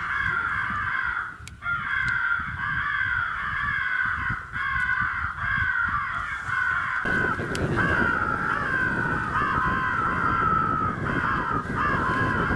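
Crows cawing in a dense, continuous chorus of overlapping calls with no break.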